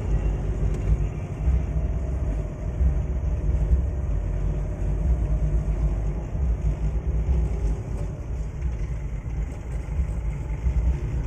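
A car driving: a steady low engine and road rumble, with a faint steady hum above it.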